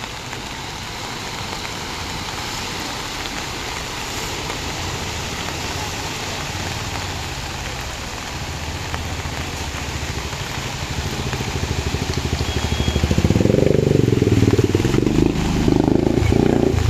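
Steady hiss of heavy rain and running floodwater. From about halfway a motorcycle engine grows louder, loudest over the last few seconds as the bike wades and splashes through the flooded street.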